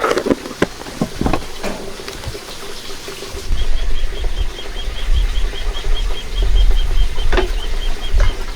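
A few light knocks and clicks, then wind buffeting the microphone from about three and a half seconds in, over a fast, even run of high chirps, about five a second.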